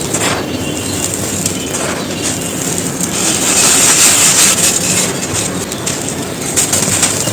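Soft, dusty bricks crumbling and being crushed: a dense, continuous run of dry crunching and crackling, a little louder around the middle.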